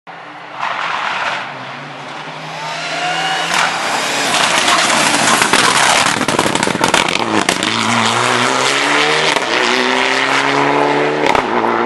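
Rally car engine at full throttle passing on a stage road, revving up, dropping in pitch at each gear change and climbing again, with sharp crackles over the engine sound in the second half.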